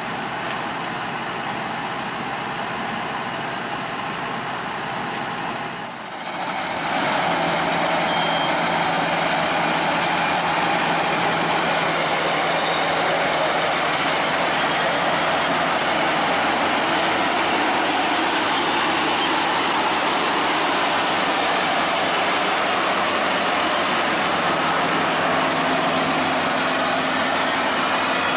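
Crown Sumo rice combine harvester running steadily while harvesting, its engine and machinery making a dense, even drone. About six seconds in the sound dips briefly, then comes back louder and holds steady.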